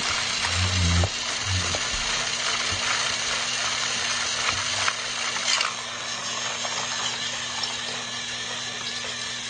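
Battery-powered toy train's motor and gears running with a steady rattling whir and scattered clicks, with a few low thuds about a second in.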